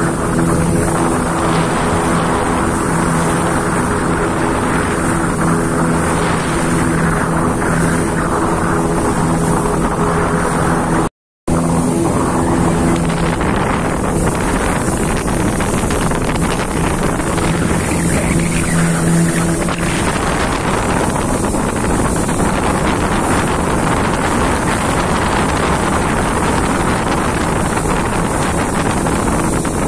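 Speedboat engine running steadily at speed, with wind buffeting the microphone and rushing water. The sound cuts out for a moment about 11 seconds in. After about 20 seconds the engine hum sinks under the wind noise.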